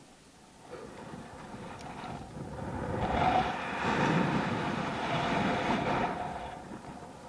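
Wind rushing over an action camera's microphone as a rope jumper swings on the rope: it builds up, peaks in the middle of the swing and fades away.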